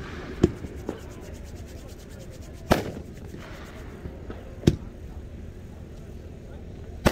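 A Psycho Circus 2-inch, 500-gram firework cake firing aerial shells. There are sharp bangs about every two seconds, four loud ones and one smaller, with a quick run of faint ticks after the first.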